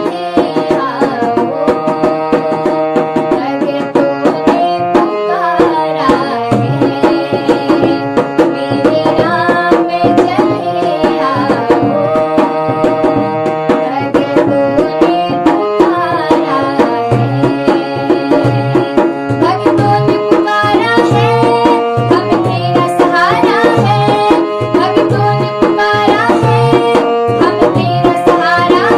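Devotional bhajan music with tabla keeping a steady rhythm under melodic instruments. The deep drum strokes grow stronger from about halfway through.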